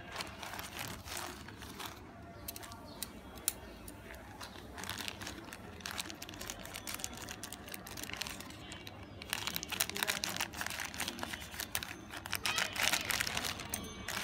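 Plastic courier mailer bag crinkling and crackling as it is handled and torn open. The crackling grows denser and louder about two thirds of the way in.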